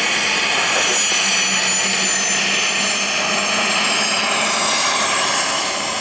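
Dassault Falcon 7X business jet taxiing close by, its three Pratt & Whitney Canada PW307A turbofans at taxi power giving a steady rush with a high turbine whine. The whine falls slightly in pitch after about four seconds as the jet rolls past.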